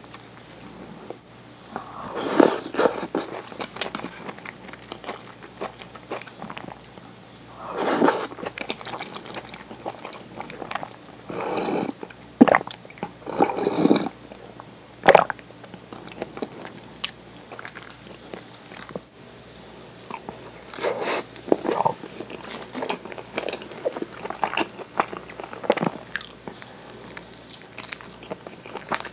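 Close-miked eating sounds: a person chewing and sipping egg soup from a bowl in irregular bursts, then biting into a nori-wrapped rice ball near the end.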